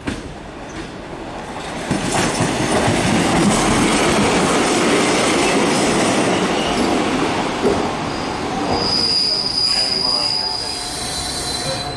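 MÁV class 117 (Bzmot) diesel railcar rolling past on the track, with loud, steady wheel-and-rail noise. About nine seconds in, a steady high-pitched wheel squeal joins in for a couple of seconds.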